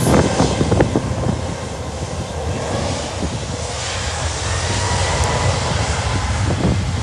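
Boeing 737-8 MAX's CFM LEAP-1B turbofans running at takeoff power on the takeoff roll: a steady jet roar with a faint whine that rises slightly in pitch midway.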